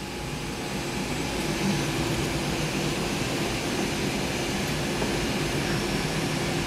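A steady mechanical hum with hiss, growing a little louder over the first second or two and then holding level.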